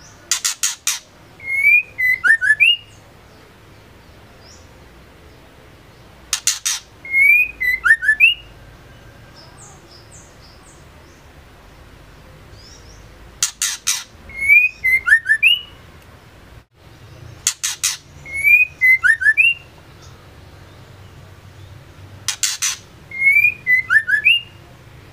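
Female white-rumped shama calling in repeated bouts, five times. Each bout is a quick run of sharp clicks followed by a few short chirping whistles that rise and fall.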